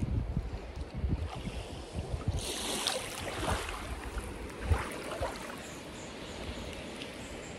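Water sloshing and lapping close to the microphone, with a brief louder rush of water about two and a half seconds in. Wind rumbles on the microphone near the start.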